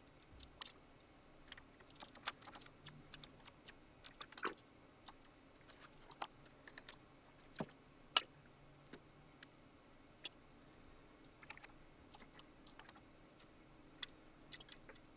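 Irregular light clicks and taps from hands working on the Digidesign 003 console's hardware, with a sharper click about eight seconds in.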